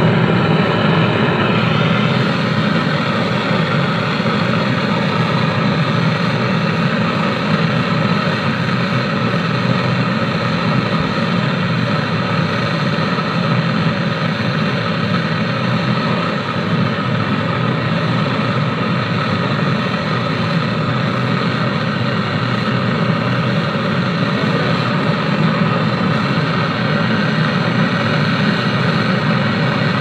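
Gas brazing torch flame hissing steadily while silver-brazing a refrigerator condenser tube joint.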